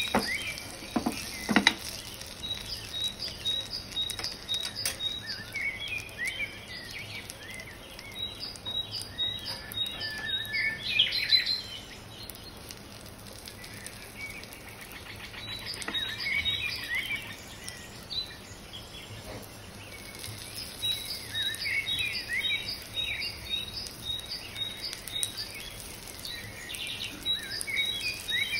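Bird-chirping background track: runs of rapid, high, repeated chirps with twittering calls between them. Under it is a faint steady sizzle of chicken frying in butter. Two short knocks come about a second in.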